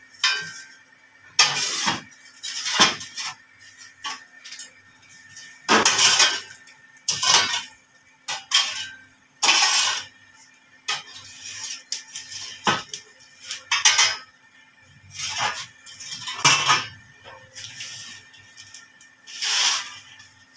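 Long iron poker scraping and clinking against the floor and metal door frame of a wood-fired masonry stove (bhatti) as the embers are raked, in irregular strokes every second or so.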